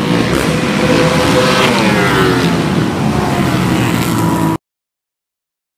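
Racing ATV engines running and revving as the quads pass, the pitch rising and falling. The sound cuts off suddenly about four and a half seconds in.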